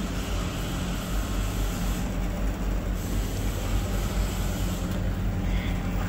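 Walk-in cooler's refrigeration unit running, its evaporator fans blowing cold air. The sound is a steady low hum over an even rush of air while the box pulls down toward just above freezing.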